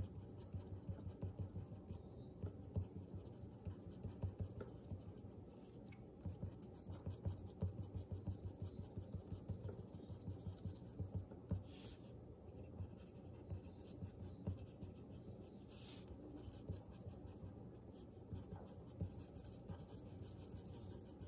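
Graphite pencil scratching on paper in many quick, short strokes, drawing fine lines of grass.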